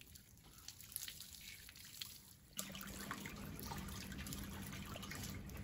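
Water from a garden hose dripping and splashing off a wet husky's coat, then, about two and a half seconds in, a sudden change to a steady rush of hose water pouring into a plastic tub.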